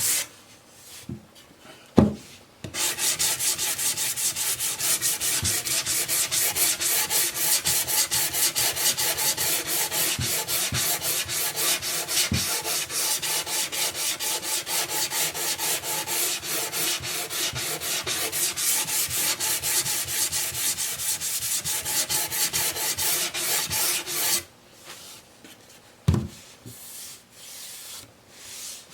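Wood being sanded by hand, sandpaper rubbed back and forth in quick, even strokes for about twenty seconds. A knock comes just before the sanding starts, and a thump comes after it stops.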